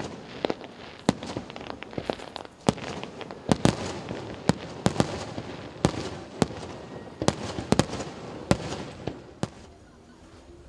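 Aerial fireworks bursting in quick succession: about twenty sharp bangs at irregular intervals over a continuous crackling hiss, dying away about ten seconds in.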